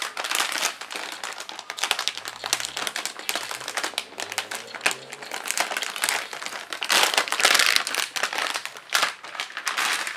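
Silver anti-static shielding bag around a graphics card crinkling and rustling as it is handled and unwrapped, an irregular run of crackles, loudest about seven seconds in.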